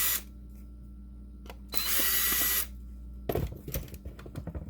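Power screwdriver whirring in two short runs, the second about a second long, backing out a game cartridge's security screws; near the end, a quick clatter of small plastic clicks and knocks as the cartridge shell is handled.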